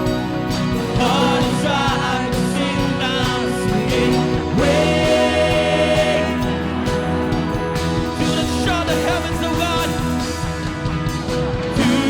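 Live praise-and-worship band playing a song, with a voice singing long held notes over the instruments.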